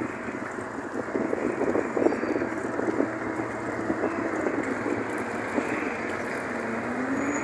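Street noise with a motor vehicle engine running, its pitch wavering and rising near the end.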